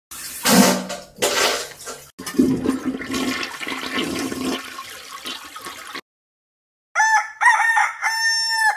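A toilet flushing, a rushing of water that surges and then dies away over about six seconds. After a short silence a rooster crows, the last note held longest.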